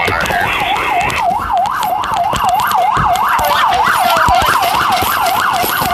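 Emergency-vehicle siren in fast yelp mode, its pitch sweeping up and down about three times a second.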